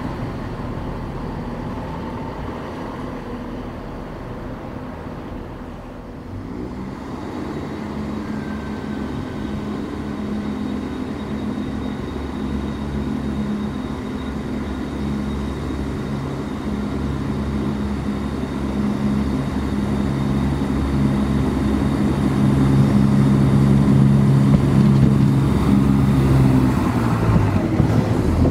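Diesel train engine running: a steady low drone with several tones starts about six seconds in over a rumble, grows louder, and stops just before the end.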